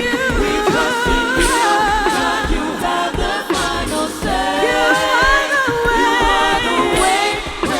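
Vocal ensemble singing a cappella in harmony: several voices holding and moving between sustained notes with vibrato.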